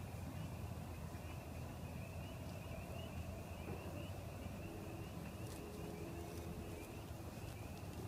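Faint outdoor evening ambience: a steady, high-pitched trilling chorus of small calling animals over a low rumble, with a few faint clicks near the end.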